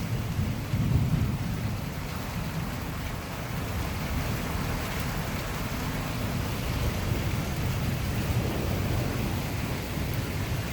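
Hard rain falling steadily in strong wind, with a low rumble of thunder dying away in the first second or two.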